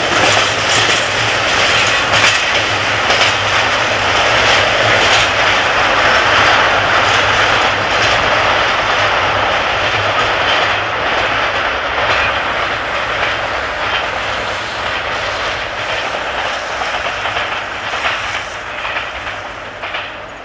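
Freight train of tank wagons rolling past over jointed track and points: a steady rumble of wheels on rails with many clicks from the rail joints, fading in the last few seconds.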